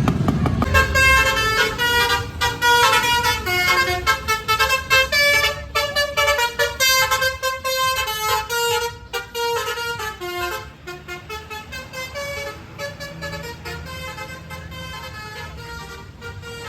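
Basuri telolet horn, a musical multi-trumpet air horn on a bus, playing a quick tune with the notes changing several times a second over a low rumble. The tune grows fainter over the last few seconds.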